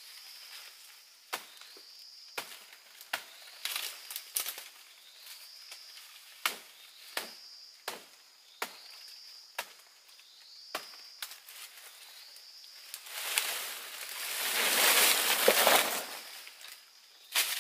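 Sharp chopping strikes at irregular intervals, a blade cutting into plant stalks, then a loud rustling swell of leaves and stalks about thirteen seconds in that lasts about three seconds.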